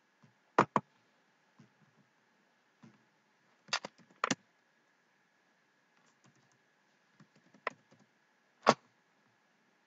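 Sharp clicks of a computer mouse and keyboard: a quick pair about half a second in, a cluster of clicks around four seconds, lighter taps between six and eight seconds, and one loud click near the end.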